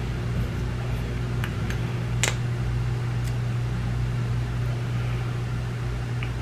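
Steady low hum of room background noise, with a few faint handling clicks and one sharper click about two seconds in as a lip gloss tube is unscrewed and its wand drawn out.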